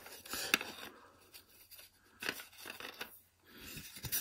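An old cardboard box being handled: rustling and scraping of the cardboard, with a few sharp clicks as it is turned in the hands.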